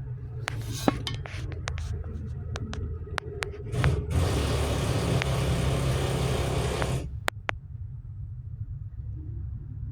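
Scattered small clicks and taps over a steady low rumble, then a loud steady hiss that starts about four seconds in, lasts about three seconds and cuts off suddenly.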